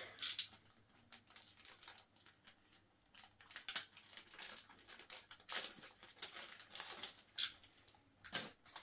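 Plastic parts bag crinkling and rustling in the hands as it is opened, with irregular crackles and a few sharper rustles.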